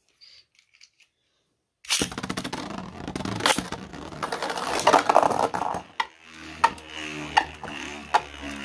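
Beyblade spinning tops launched into a stadium about two seconds in, clattering and scraping as they spin and collide. Near the end they settle to a steady low hum with a sharp click about every 0.7 seconds.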